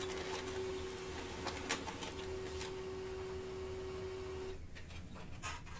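Faint handling of a sealed trading card box and its packs: scattered light clicks and rustles of cardboard and wrapper. A steady faint hum runs underneath and stops about four and a half seconds in.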